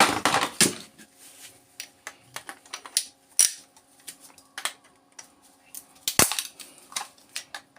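Irregular sharp metallic clicks and snaps as the iron core laminations of a small power-adapter transformer are pried and broken off its copper winding. There is a quick cluster of clicks at the start and a louder knock about six seconds in.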